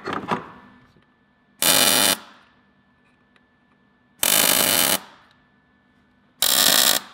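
Three short bursts of arc welding, each about half a second long and about two seconds apart: tack welds joining the steel pieces of a custom engine mount.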